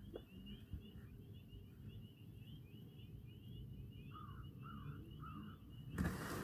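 Faint birdsong: a thin high twittering repeats steadily, and three short lower calls come one after another about four seconds in. Near the end a louder rustling noise starts.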